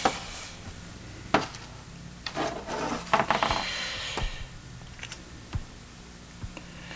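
Scattered small clicks and taps with some rubbing, from pencil leads being worked into the barrel of a mechanical pencil, where they are not going in easily.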